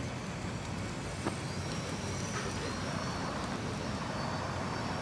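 Radio-controlled model airplane flying, its motor and propeller giving a faint steady high whine over outdoor background noise.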